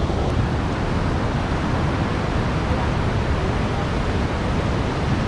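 Tahquamenon Falls rushing: the steady, even noise of a large volume of river water pouring over the falls, unchanging throughout.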